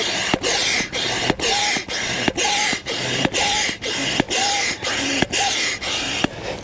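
Dual-action manual hand pump inflating an air tent's beams: a rush of air on every up and every down stroke, about two strokes a second, with a short squeak on some strokes.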